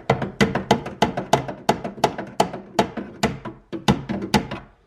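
A rapid run of sharp taps on the metal of a car window regulator, about four to five strikes a second, each ringing briefly. The taps stop abruptly near the end.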